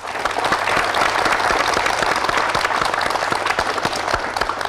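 A large studio audience applauding steadily, many hands clapping together.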